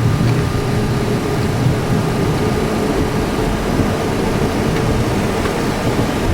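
Steady noise of a Boeing 737-300's jet engines running, heard inside the cockpit: an even, loud rumble with a faint steady hum above it.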